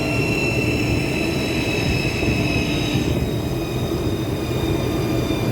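Kuang Yung defect-cutting saw running: a steady mechanical noise with a high whine of several tones that drift slowly lower and shift about three seconds in.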